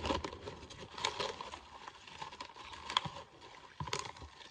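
Lay's Wavy barbecue potato chips being chewed: irregular crisp crunches and crackles.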